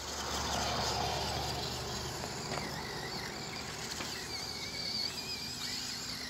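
Small electric motor of the Spin Master All-Terrain Batmobile RC toy whining as it drives across wet grass. Its pitch falls in the first second, then wavers up and down with the throttle.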